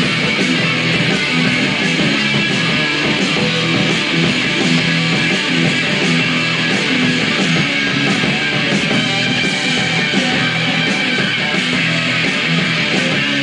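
Live rock band playing loudly and without a break: electric guitars, bass and drums.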